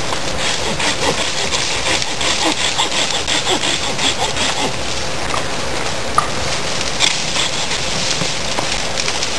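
Corona folding hand saw cutting through the trunk of a small standing tree, in steady back-and-forth strokes.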